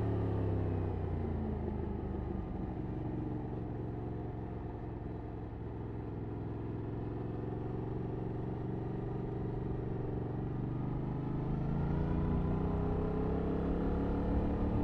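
A stock 2021 Yamaha MT-07's 689 cc parallel-twin engine on the move. The revs fall away over the first few seconds, run low and steady, then climb again as it accelerates about ten seconds in.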